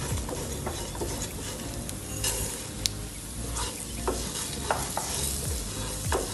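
Silicone spatula stirring and scraping rice, sesame and coriander seeds as they dry-roast in a nonstick pan, with a light sizzle and repeated short scrapes against the pan.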